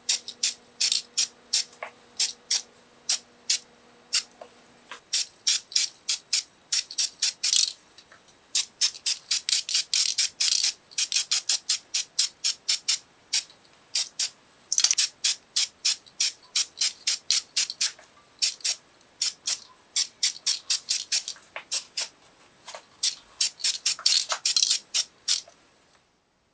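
Rust-Oleum aerosol spray-paint can hissing in many short bursts, often several a second, with a few brief pauses.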